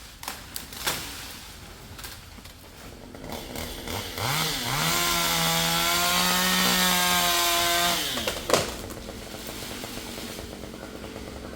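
Chainsaw revved up twice about four seconds in, then held at high speed for about three seconds before dropping off. A single sharp knock follows just after it.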